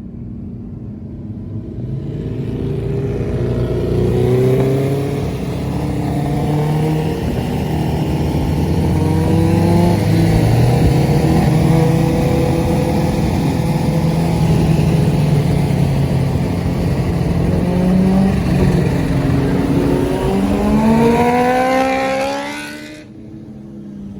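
Kawasaki H2's supercharged inline-four with an SC Project exhaust, accelerating through the gears. Its pitch climbs and drops back at each shift, then climbs steeply once more and cuts off suddenly near the end.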